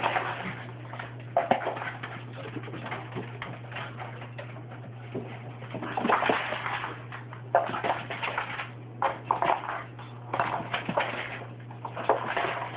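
A dog's claws clicking and scrabbling on a hard floor in irregular bursts as it chases a laser dot, over a steady low hum.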